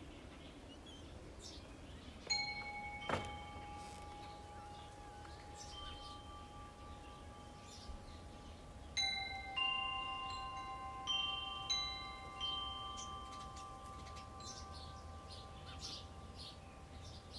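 Wind chimes struck by the wind in scattered clusters: a couple of strikes a few seconds in, then several more near the middle, each tone ringing on for seconds. Birds chirp faintly throughout.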